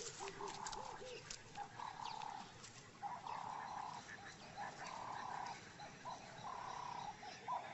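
Faint wildlife ambience: short animal calls held at one middling pitch, repeating about every half second, with scattered faint clicks.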